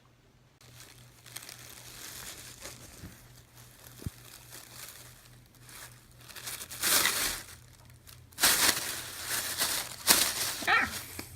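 Crinkling and rustling of packaging being handled, faint at first, then louder in bursts about seven seconds in and again from about eight and a half to ten and a half seconds in.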